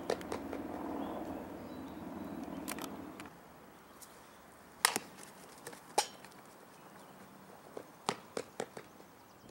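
Softball bat striking the ball on a bunt: one sharp knock about five seconds in, then a second knock about a second later, followed by quick running footsteps on the dirt infield near the end. Before that, a low steady hum with a few clicks that cuts off about three seconds in.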